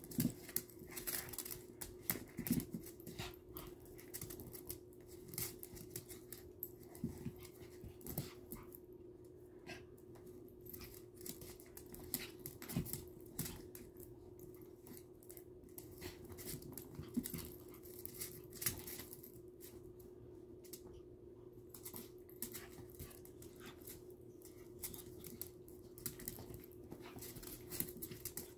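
Two small dogs play-fighting on a laminate floor: their claws click and scuffle in quick irregular bursts, with the dogs' breathing and panting.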